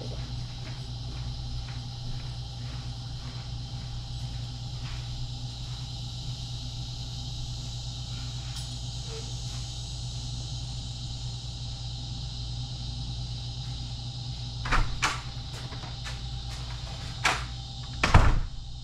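A steady low hum with a faint hiss above it, then a few sharp knocks and thumps: two close together about fifteen seconds in, and two more near the end, the last the loudest.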